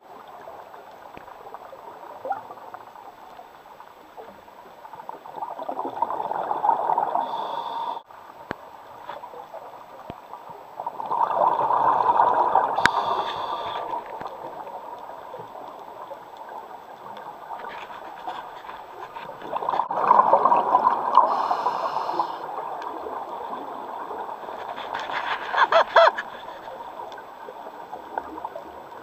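Scuba diver's exhaled bubbles rattling out of a regulator, heard underwater, coming in four surges a few seconds apart with a steady hiss between them.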